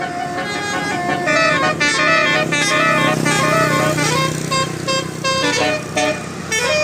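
Indonesian bus 'telolet Basuri' multi-tone musical horn playing a quick melody of stepped notes, with a bus engine running underneath.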